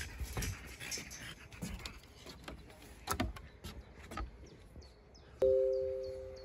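French bulldog's breathing and steps on the walkway, with scattered short clicks. About five seconds in, a single struck chime rings out on two steady notes and fades over about a second.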